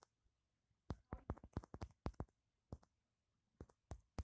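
Typing on a smartphone's on-screen keyboard: a dozen or so short key-tap clicks, a quick run of them between one and two seconds in, then a few more spaced out near the end.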